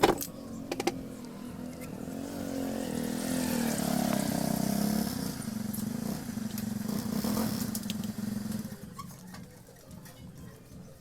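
Small motorcycle-type engine running for about eight seconds, growing louder and then cutting off near the end, after a few sharp clicks at the very start.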